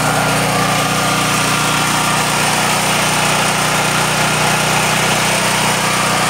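Firman H07552 generator's 439cc OHV single-cylinder engine, freshly started and running steadily on natural gas through a conversion kit.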